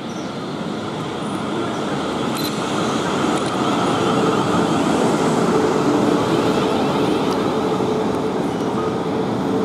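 South Western Railway Class 450 Desiro electric multiple unit running into the platform. The rumble of wheels on rail grows louder as the carriages come alongside, and a steady electric whine joins in about four seconds in.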